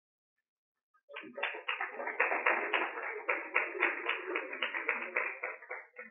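Audience applauding, starting about a second in and stopping abruptly just before the end.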